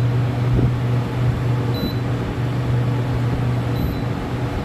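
Induction cooktop beeping its E0 error alarm: short high beeps about every two seconds, twice here, over a steady low hum and rushing noise.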